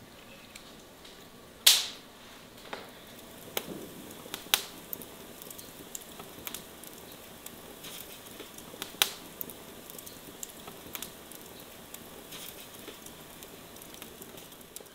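Irregular sharp clicks and crackles over a low steady hiss, the loudest about two seconds in and another around nine seconds.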